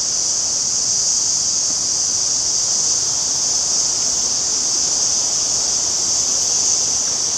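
Steady high-pitched drone of insects over the even rush of a small waterfall.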